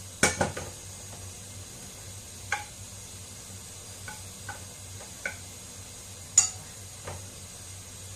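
Wooden chopsticks and a frying pan knocking and clicking as oil is spread around the hot pan on a gas stove. There are about eight sharp knocks: a loud cluster just after the start, lighter taps between, and another loud knock about six seconds in. A steady faint hiss runs underneath.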